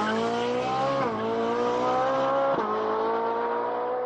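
Car engine accelerating, rising in pitch and dropping back at gear changes about a second in and again about two and a half seconds in, then climbing steadily again.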